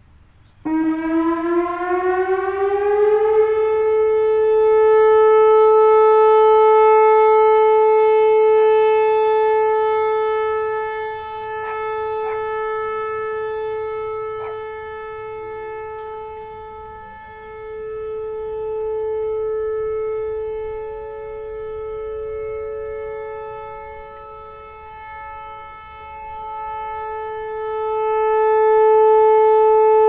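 Whelen Vortex R4 rotating outdoor warning siren sounding a steady alert: it winds up with a rising pitch for about three seconds, then holds one steady tone near 435 Hz, the pitch its older ESC-2020 controller's glitch gives it. The sound swells and fades slowly as the four horns rotate toward and away from the listener.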